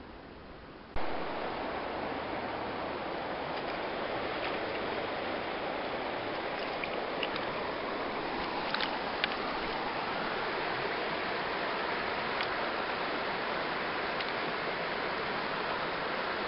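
Shallow stream running steadily over stones, starting abruptly about a second in, with a few faint clicks.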